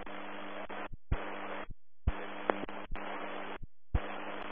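Air-band radio feed with no one talking: hiss with a steady low hum, cutting in and out about five times with a click at each start, as the channel opens and closes.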